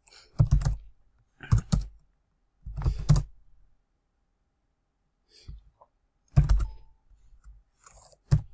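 Computer keyboard being typed on in short bursts of a few keystrokes each, with pauses between them and a quiet gap of nearly two seconds in the middle.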